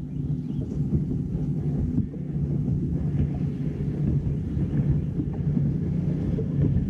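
Bass boat's outboard motor running steadily, with wind rushing over the microphone.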